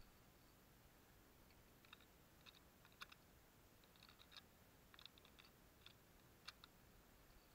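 Faint, scattered metallic clicks of a Yugoslav M24/47 Mauser bolt-action rifle's open action as cartridges are loaded by hand, over near silence. The sharpest clicks come about three seconds in and about six and a half seconds in.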